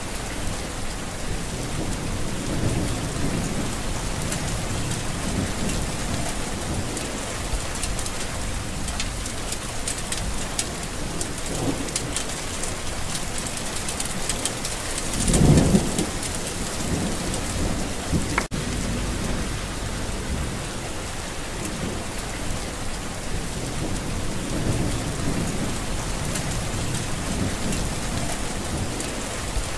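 Steady rain falling in a windy storm, with a low roll of thunder about halfway through.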